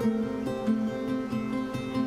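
Background music: a plucked string instrument picking out notes about four times a second over a held low tone.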